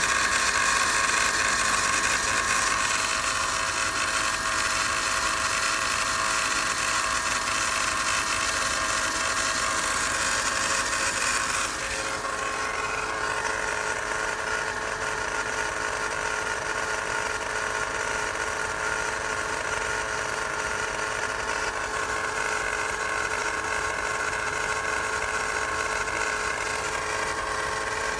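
Mercedes M273 V8 idling with a steady high-pitched chattering from the accessory belt drive at the front of the engine, traced to worn belt idler pulleys: replacing both pulleys cured it. The sound drops slightly in level about twelve seconds in.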